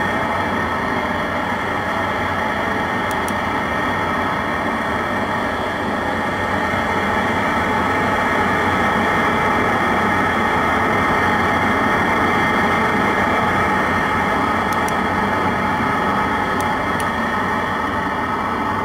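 Steady rushing of flue gas out of a Rheem RGRM condensing gas furnace's vent pipe, pushed by the furnace's power-vent draft fan, with an even fan hum.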